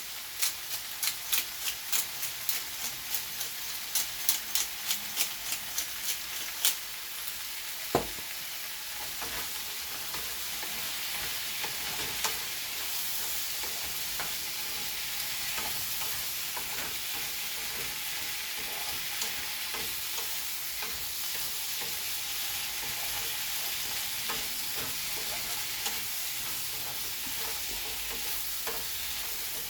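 Diced chicken with tomatoes, bell peppers and onions sizzling as it fries in a pan. For the first several seconds a spatula stirs it, clicking against the pan about two or three times a second, with one louder knock at about eight seconds. After that the frying settles into a steady sizzle.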